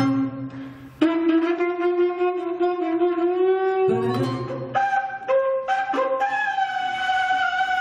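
Live small-band music in which a wind instrument plays long held notes, the first sustained for about three seconds. Low notes come in underneath about four seconds in.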